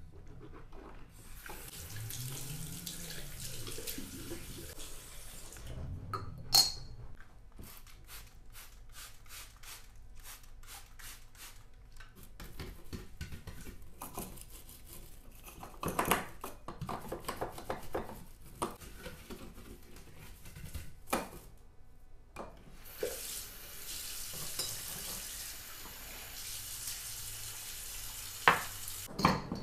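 Bathroom tap running into the basin for several seconds, then turned off with a sharp click. A run of quick short strokes and clicks follows as the basin is cleaned, and the tap runs again for a few seconds near the end.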